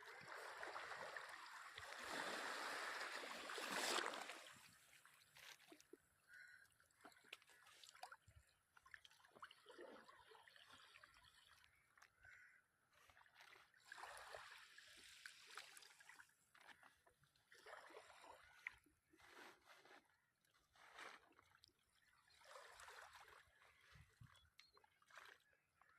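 Seawater splashing and sloshing, loudest for the first four seconds, then a run of smaller, intermittent splashes.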